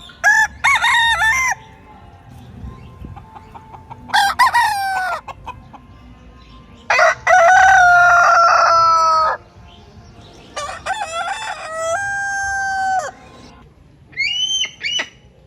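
Roosters crowing: five separate crows with short pauses between, the longest held for about two and a half seconds in the middle.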